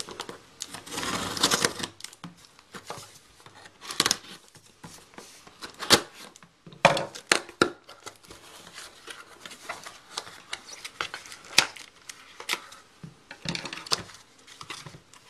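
Scissors cutting through packing tape on a cardboard shipping box, a dense rasp in the first couple of seconds, then the cardboard flaps pulled open and the box handled, with scattered scrapes, knocks and rustles.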